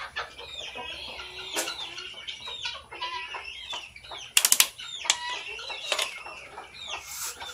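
Poultry peeping in a steady chorus of short, high falling chirps, with pecking clicks, and a brief loud flurry of wing flaps about four and a half seconds in.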